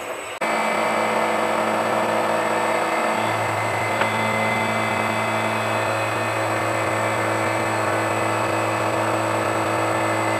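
Milling machine running with a small end mill cutting 6 mm aluminium plate: a steady motor hum under an even machining noise. The low hum grows a little stronger about three seconds in.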